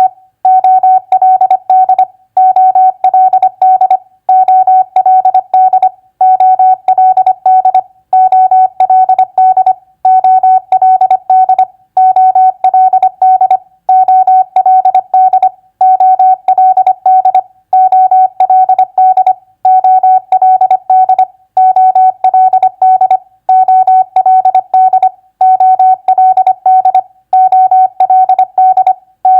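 Morse code sidetone: a single steady beep keyed on and off in dots and dashes at 25 words per minute, spelling common three-letter words. The words come as short groups of beeps, about one every two seconds, with a brief gap between each.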